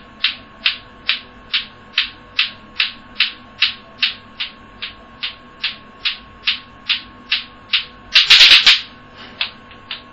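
Bate-bate clackers: two small hard balls on a string knocking together in a steady rhythm, about two and a half clacks a second. About eight seconds in the rhythm breaks with a louder, brief burst of noise, followed by a few softer, irregular clacks.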